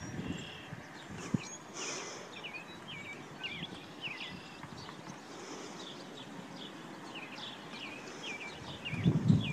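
Small birds chirping over and over, short quick chirps through a faint background hiss, with a few low bumps near the end.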